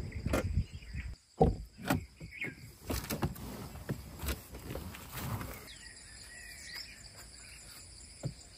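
A person climbing out of a Maruti Suzuki Jimny: knocks and thuds from the open door and feet stepping onto dry ground during the first five or so seconds. After that come steady high insect buzzing and a few bird chirps.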